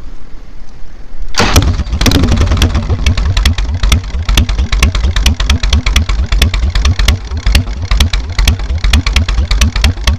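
Harley-Davidson Evolution V-twin engine starting: a low rumble, then it fires and catches about a second and a half in. It settles into an uneven, loping idle with strong exhaust pulses.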